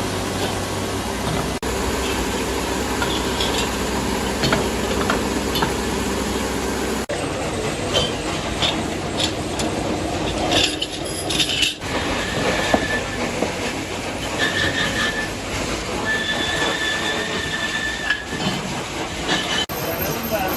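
Metalworking machinery working cast-iron sewing machine parts: a steady machine noise with scattered metal clanks and clicks, changing abruptly several times, with a high steady whine near the end.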